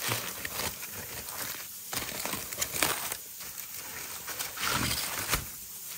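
Aluminium foil crinkling and crackling as a crumpled foil packet is peeled open by hand, irregular throughout with a few sharper crackles.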